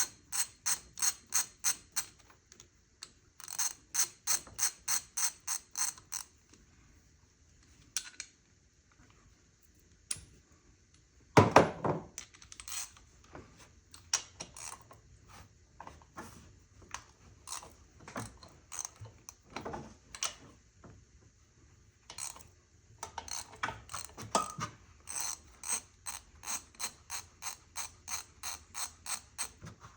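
Socket ratchet wrench clicking in quick runs of about four strokes a second as bolts are backed out on a car engine, with scattered single clicks between runs and one loud clunk about a third of the way through.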